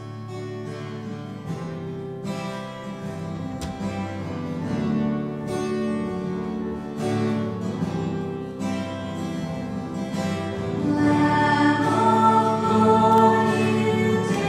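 Church hymn played on acoustic guitar with sung voices, the singing growing louder near the end.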